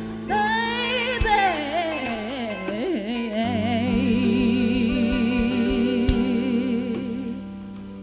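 Female voice singing a long, ornamented run and then holding a final note with wide vibrato for about four seconds over sustained band chords, closing the song; the sound fades near the end.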